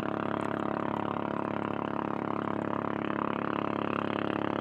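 Steady drone of pumpboat engines (motorized outrigger bancas) running at speed, holding an even pitch.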